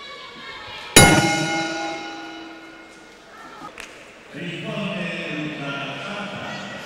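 Boxing ring bell struck once about a second in, ringing out and fading over about two seconds: the bell ending the round. A murmur of voices in the hall rises from about four seconds in.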